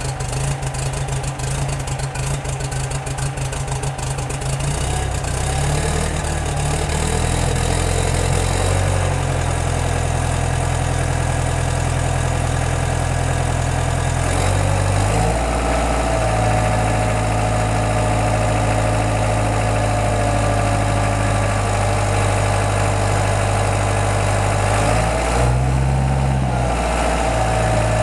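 International Harvester Neuss-built diesel engine of a backhoe loader running shortly after a cold start, without glow plugs, intake heater or ether, on a freshly re-timed injection pump. It runs with a rapid rough chatter for the first few seconds, then smooths out as its speed steps up twice. Near the end it revs briefly and settles back.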